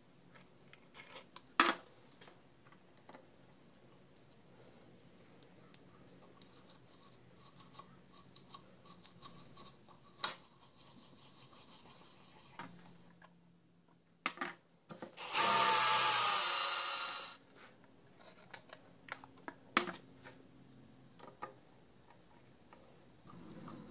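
A hand tap being turned into a freshly drilled hole in a steel table top, giving faint scraping and a few sharp metal clicks. A power drill runs once for about two seconds just past the middle, and its whine dips slightly as it spins up, then holds steady.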